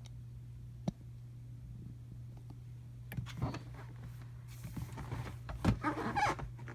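Handling noises: a sharp click about a second in, then scattered knocks and a cluster of knocking and scraping near the end, over a steady low hum.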